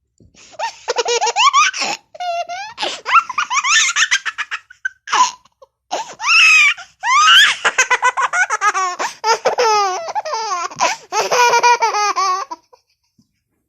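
Baby laughing in fits of quick, high-pitched belly laughs, several runs broken by short pauses.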